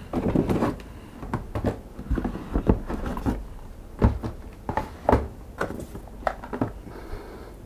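Packaging being handled: irregular knocks, scrapes and rustles as items are lifted out of a molded pulp tray in a cardboard box.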